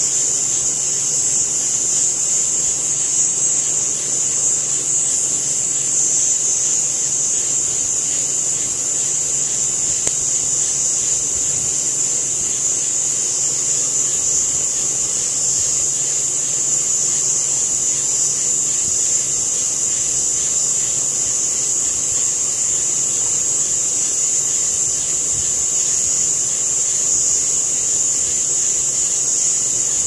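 Loud, unbroken high-pitched chorus of night insects.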